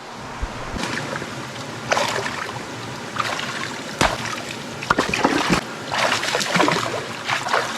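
A shovel scraping and digging into wet gravel and black sand in a shallow brook, with water splashing as the material is worked, in irregular strokes over the steady rush of the stream.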